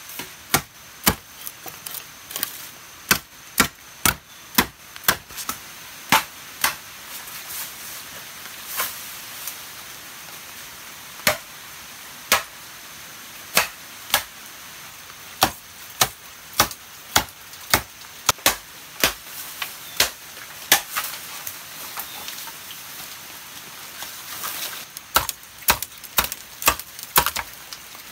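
Bamboo being chopped with a blade: sharp single strikes in runs of about one to two a second, with a couple of short pauses.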